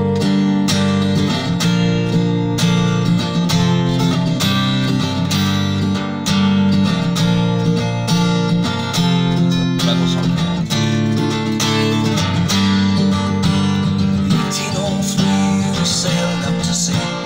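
Steel-string acoustic guitar strummed in a steady rhythm, chords changing every second or two: the instrumental opening of a folk ballad before the singing starts.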